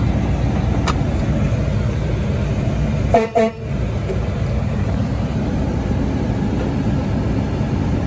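Truck engine and road rumble heard from inside the cab while driving on a dirt road. About three seconds in, a horn gives two short toots.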